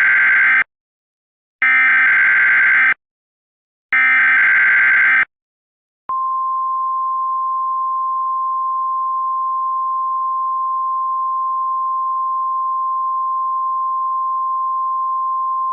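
Emergency Alert System SAME header: three short bursts of screeching digital data about a second apart, then the NOAA Weather Radio single-pitch alert tone, held steady for about ten seconds. Together they announce a new warning broadcast, here a tornado warning.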